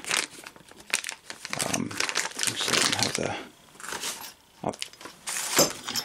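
Plastic packaging bag crinkling and rustling in irregular bursts as it is handled, with a couple of sharper knocks near the end.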